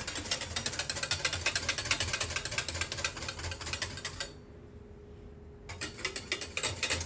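Wire whisk beating egg-lemon sauce in a stainless steel saucepan: fast, rattling ticks of the wires against the pan. The ticking stops for about a second and a half a little over four seconds in, then starts again.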